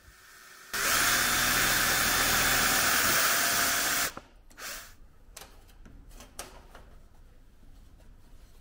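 Ridgid cordless drill running steadily at speed for about three seconds as a 1/8-inch bit drills a pilot hole through the metal rail of a brush door-seal kit into the wood behind, then stopping abruptly. A brief second burst from the drill follows, then light handling knocks.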